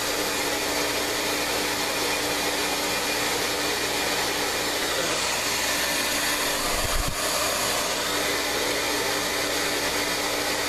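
Electric blow dryer running steadily, a constant rushing of air with a steady hum. A brief low bump about seven seconds in.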